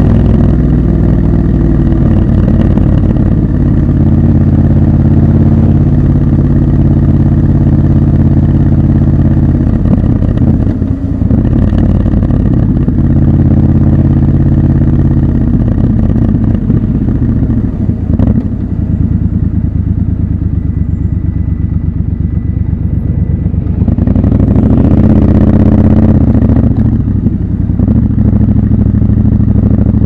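Triumph Scrambler 1200 XC's parallel-twin engine and exhaust running under way, heard from the rider's seat. It mostly holds a steady cruise, eases off briefly about ten and eighteen seconds in, then pulls louder for a few seconds about two-thirds of the way through before settling again.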